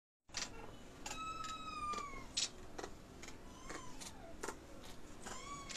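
A kitten meowing faintly three times: a long, falling meow about a second in, then two shorter rise-and-fall meows near the middle and near the end, with scattered soft clicks between them.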